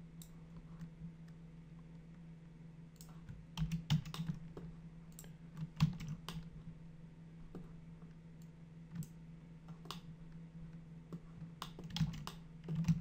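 Computer keyboard and mouse clicks: scattered taps in short clusters, over a steady hum.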